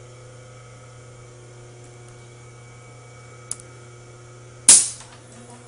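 Acroloc CNC turret tool changer cycling on a tool-change command: a steady machine hum, a light tick about three and a half seconds in, then one loud sharp clunk near the end as the turret lock engages.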